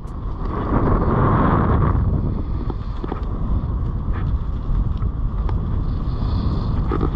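Wind rushing over a GoPro Hero 8's microphone while it hangs aloft under a towed parasail: a loud, steady rumbling rush that swells and eases, with a few faint clicks.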